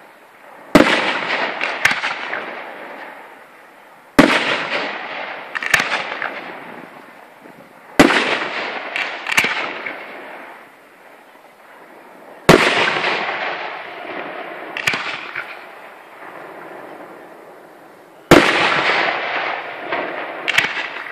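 Aerial firework shells bursting with sharp bangs every few seconds, five big ones with smaller reports between. Each bang trails off in a long echo that fades over several seconds.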